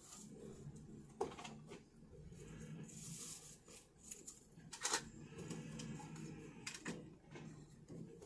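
Faint low hum of a flatbed tow truck running as its bed is moved, with a few sharp clicks, the loudest about five seconds in.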